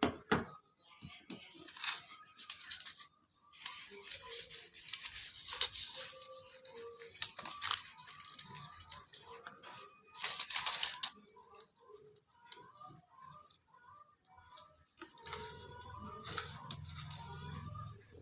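Paper being torn and crinkled by hand in irregular bursts, as when pasting paper over a firework shell casing.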